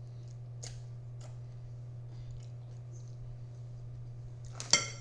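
Quiet eating sounds: a few faint clicks, then one sharp click with a brief ring near the end, over a steady low hum.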